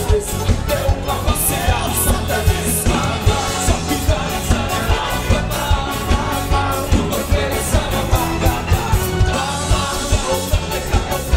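Band music with a singer over a steady drum beat.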